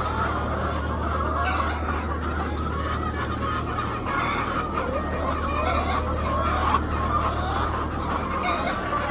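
A flock of laying hens clucking, many birds calling over one another at once, over a steady low hum.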